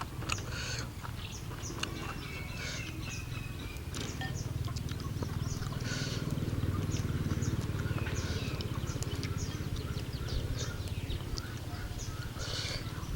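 Close-up eating sounds: chewing and slurping noodles, with many small mouth clicks and brief wet bursts over a steady low hum.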